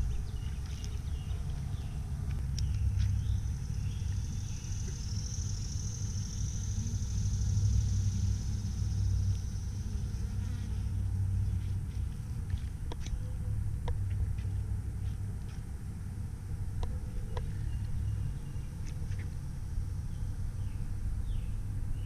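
Honeybees buzzing around the entrance of a plastic Apimaye hive, over a steady low rumble.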